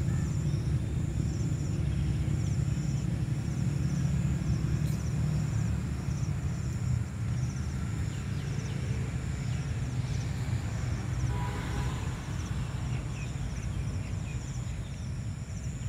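Outdoor garden ambience: a steady low rumble, with insects chirping high up in short, evenly spaced pulses about twice a second, and a few faint bird chirps around the middle.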